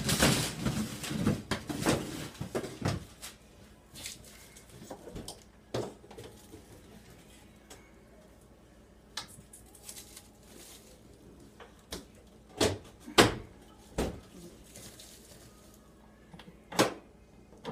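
An over-the-range microwave being pushed and shifted against its mounting under a kitchen cabinet: a scraping, rustling scuffle of handling for the first few seconds, then scattered knocks and bumps of the metal unit, the loudest a little past halfway.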